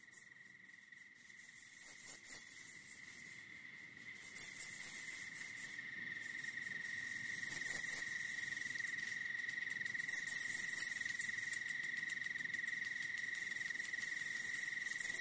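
A steady, unbroken high-pitched tone with patches of crackling hiss above it that come and go, insect-like in character.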